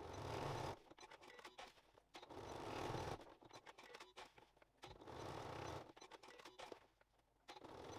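Sewing machine running in three short bursts of about a second each, stitching a short diagonal line across each corner of a fabric pouch. Soft handling noises come between the bursts as the fabric is turned.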